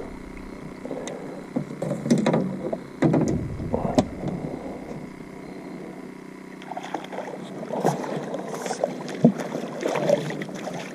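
Handling noises on a fishing boat: scattered knocks and rustles of gear over a faint steady hum.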